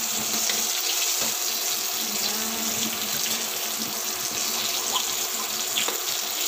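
Breaded pork-and-cabbage rolls sizzling steadily as they shallow-fry in hot oil in a stainless steel pan, with a few light clicks of metal tongs against the pan as the rolls are turned.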